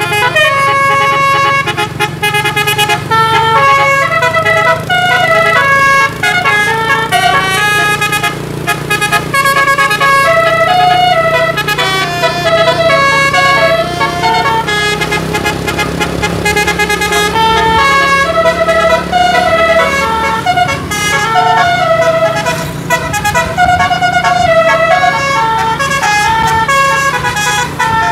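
Tour bus's custom musical air horn (telolet horn module) playing a long, fast melody of many short stepped notes, over the steady low hum of the bus's engine.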